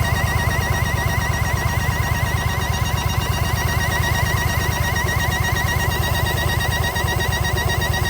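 Yamaha XV950 Bolt's air-cooled V-twin idling steadily, with a high whistle that wavers about four times a second: the abnormal noise of an intake manifold air leak.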